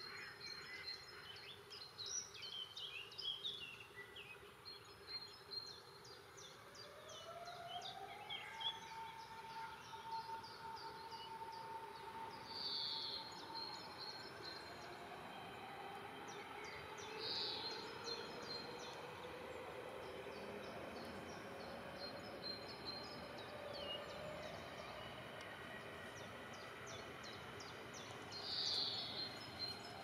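Small birds chirping and singing throughout, with a few louder short calls. A distant siren rises about seven seconds in and holds one steady tone for a few seconds, and a lower distant hum drifts on later.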